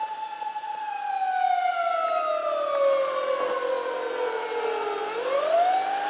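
Japanese police patrol car siren wailing: one slow falling tone over about five seconds that turns and rises again near the end.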